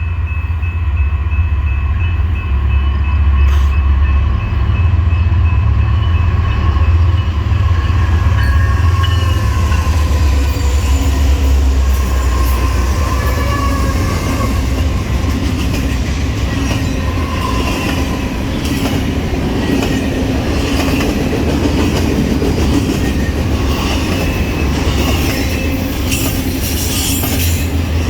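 A train passing close by: a heavy low rumble with a few thin steady high tones in the first half. Through the second half the rhythmic clickety-clack of wheels over the rail joints grows.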